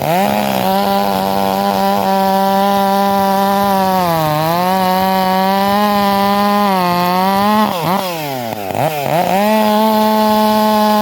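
Stihl MS 400 C-M two-stroke chainsaw at full throttle, cutting into wood. The engine note sags a few times under load, then falls away steeply for about a second near the end before climbing back to full revs.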